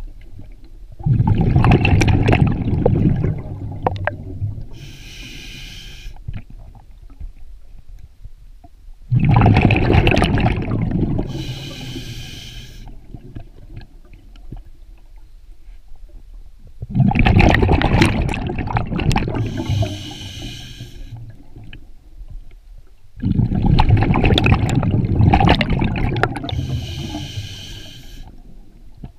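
Scuba diver breathing underwater through a demand regulator, four breaths in all, about one every seven seconds. Each breath is a loud burst of exhaled bubbles lasting two to three seconds, followed a few seconds later by the shorter, high hiss of inhaling through the regulator.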